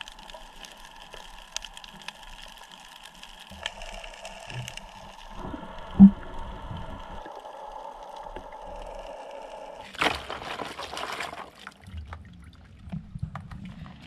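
Muffled underwater sound from a camera held below the surface: a steady hum with low rumbling, one sharp knock about six seconds in, and a loud rush of water or bubbles about ten seconds in.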